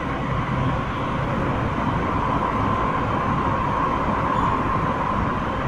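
Tsukuba Express TX-1000 series electric train running at speed, heard from inside the carriage: a steady rumble of wheels on rail with a steady high whine on top.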